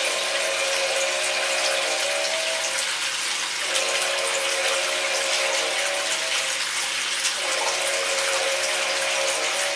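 Bath tap running into a tub: water pouring and splashing steadily. A few held humming tones sound with it, dropping out twice for a moment and coming back.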